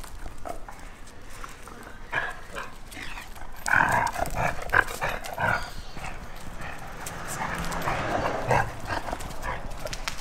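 German wirehaired pointer puppies yapping as they play, in a run of short yaps about four to six seconds in.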